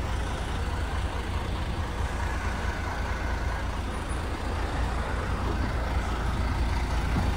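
Large road vehicle's engine running with a steady low rumble and an even wash of road noise.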